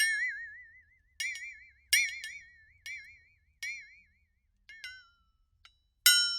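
Synthesized cartoon sound effect: a series of bright, chime-like struck tones, each ringing with a warbling, wobbly pitch and fading out, about one every 0.7 seconds. The last tone, near the end, slides upward as it fades.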